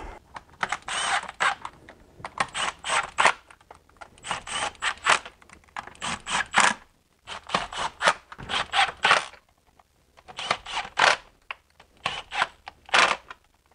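Ratchet clicking in about a dozen quick bursts while intake manifold bolts are run down, each burst a rapid string of sharp metallic clicks with short pauses between.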